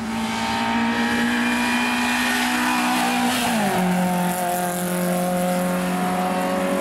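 Peugeot 205 hill-climb car's engine running hard at high revs as it drives by. Its pitch drops smoothly as it passes, about three and a half seconds in, then holds steady as the car pulls away up the hill.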